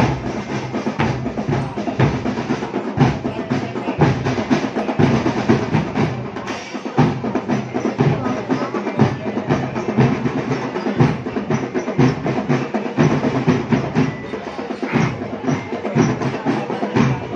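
A marching drum band playing a drum cadence: bass drums and other marching drums striking a dense, steady rhythm.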